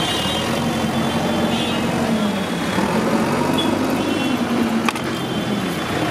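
Roadside traffic noise with a motor vehicle's engine running close by, steady and loud. Short high beeps recur through it, and there is a single sharp click about five seconds in.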